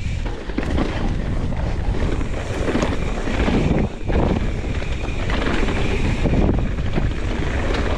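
Wind buffeting an action camera's microphone during a fast mountain bike descent, with the rough rumble of the ride over the trail.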